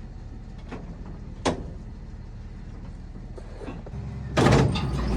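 Tractor engine running at a steady idle with a single sharp metallic click. About four seconds in, a loud scraping, rattling clatter of the baler's metal parts starts and keeps going.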